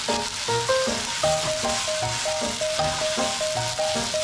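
Sliced chicken gizzards and garlic scapes sizzling in oil in a frying pan over medium-high heat as they are stirred with chopsticks. Background music plays along with it, a melody over a regularly repeating bass note.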